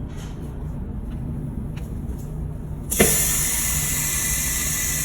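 OCA lamination machine running its cycle with a steady low motor or pump hum; about three seconds in, a sudden loud hiss of air starts and holds, as the machine releases its vacuum at the end of the laminating cycle.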